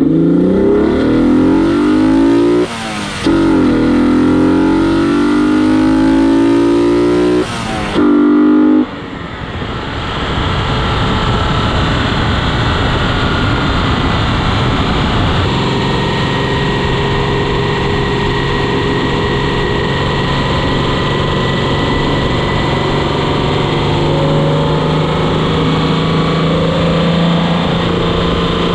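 Modified 3.0-litre Alfa Romeo GTV6 V6 engine, heard at its intake, accelerating hard with its pitch rising through the gears and a brief drop at each shift. About ten seconds in it settles into a steady cruise.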